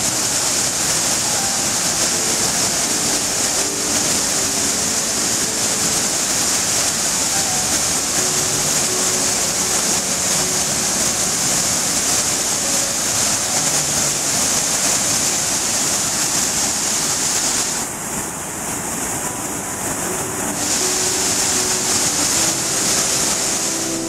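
Waterfall plunging into a pool: a steady, loud rush of falling water, bright and hissy. Near the end its upper part thins for a couple of seconds, then comes back.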